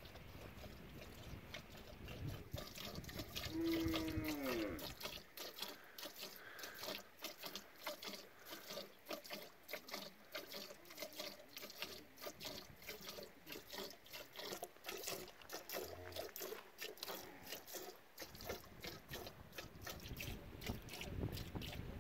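Milk squirting by hand from a cow's teats into a plastic container: a run of quick, rhythmic squirts. About four seconds in, a short call falls in pitch.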